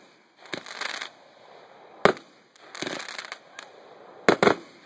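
Consumer firework cake from Phantom Fireworks firing aerial shells that burst with sharp bangs: one about half a second in, one at about two seconds, and a quick double bang near the end. Crackling sounds between the bangs.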